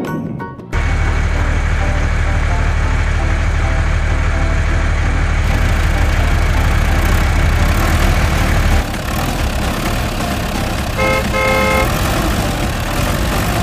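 A vehicle engine rumble that starts abruptly and runs steadily, changing about 9 s in, with a couple of short horn toots near the end.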